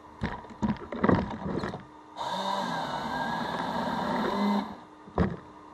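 A few sharp knocks and clatters, then a steady mechanical whine and hum for about two and a half seconds that starts and cuts off abruptly, followed by one more knock.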